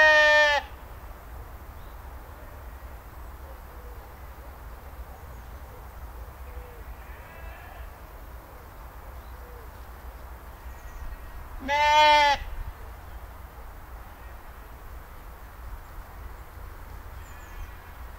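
Sheep bleating: one loud bleat right at the start and another about twelve seconds in, each under a second long, with a few faint calls in between over a low steady rumble.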